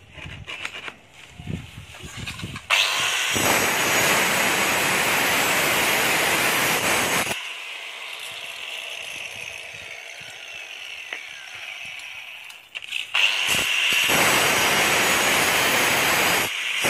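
Handheld electric marble cutter with a diamond blade cutting granite border strips in two loud, steady passes of about four seconds each, with a quieter stretch between them.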